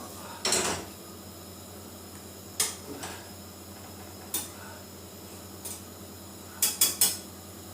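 Kitchenware being handled: a short scrape about half a second in, a few separate knocks a second or more apart, then three quick sharp clacks near the end, over a steady low hum.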